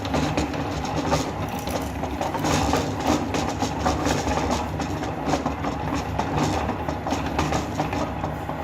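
Meat grinder running with a steady motor hum while hard fruity candy cracks and crunches in it, giving a constant stream of irregular clicks.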